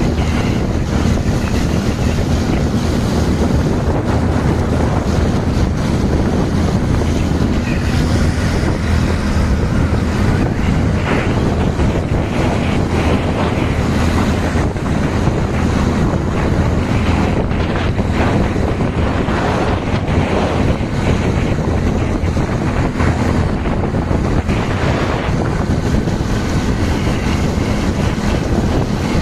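Wind buffeting the microphone of a moving motorcycle at speed, a steady rushing noise, with a low, steady engine hum underneath.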